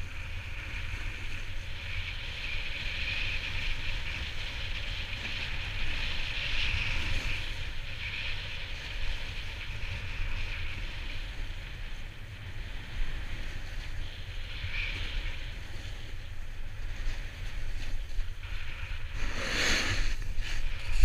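Wind buffeting the microphone of a snowboarder's action camera as it rides downhill, with the steady hiss of the snowboard sliding over packed snow. A few louder scrapes near the end as the board's edge digs in.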